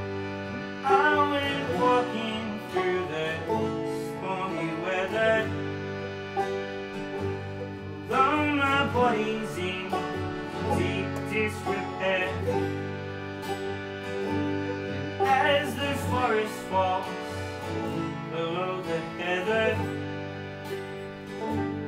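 Acoustic folk band playing live: a Gibson J-45 acoustic guitar strummed, a banjo picked, and a harmonium holding sustained chords underneath. A man sings over them in phrases a few seconds long.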